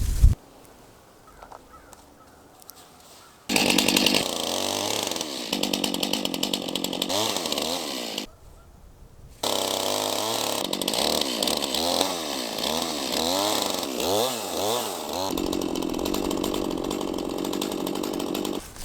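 Chainsaw mill ripping through a large log. The saw is faint for the first few seconds, then runs loud from about three and a half seconds in. It drops out briefly around eight seconds and runs again, its engine pitch rising and falling as it labours in the cut.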